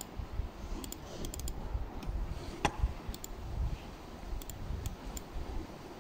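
Computer mouse clicking: about a dozen sharp clicks, several in quick pairs like double-clicks, over a low background rumble.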